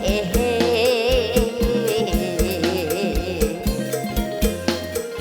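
Live Isan folk band music with a steady, regular drum beat under a wavering lead melody with vibrato.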